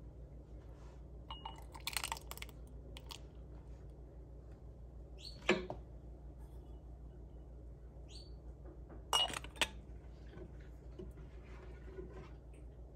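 Stainless steel canning funnel clinking against glass canning jars as jam is ladled in and the funnel is moved from jar to jar. There are a few separate light clinks: a cluster about two seconds in, the loudest about halfway, and a quick pair near the end.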